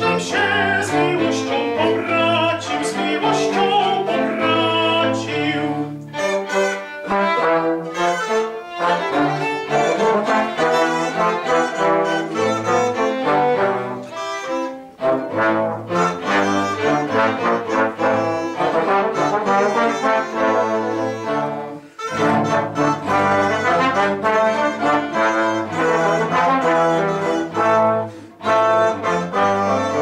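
Early-music ensemble playing a 17th-century Polish song: two trombones carry the tune over bowed strings, in phrases with brief breaks between them.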